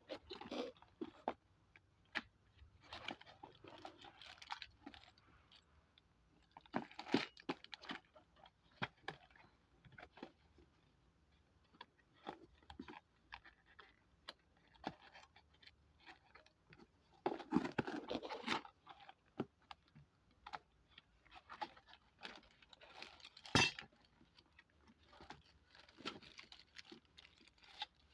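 Intermittent rustling and clicking as the packaging and small metal parts of a TV wall-bracket kit are handled, with one sharp click about two-thirds of the way through.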